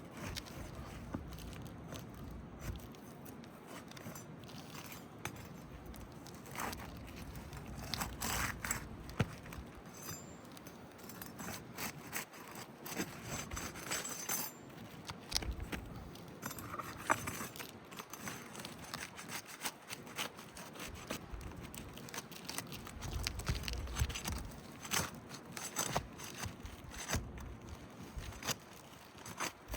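Asphalt roof shingles being pried loose to unfasten their nails: irregular scraping, crackling and sharp metal-on-nail clicks as the tab tears and the nails come up.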